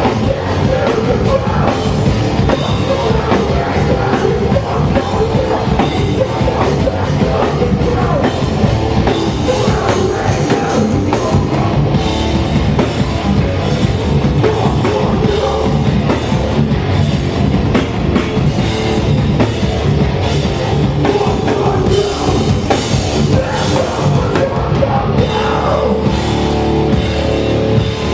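Hardcore punk band playing live: distorted electric guitars, bass and fast drums at full volume through a venue PA.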